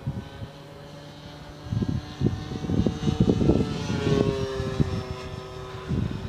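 ParkZone Fw 190 RC warbird's electric motor and propeller whining in flight, the pitch falling about four seconds in as it passes. Gusts of wind buffet the microphone from about two seconds in.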